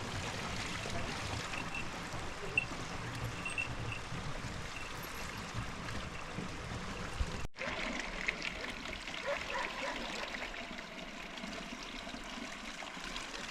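Water trickling and flowing steadily, like a small mountain stream, with a brief break about halfway through.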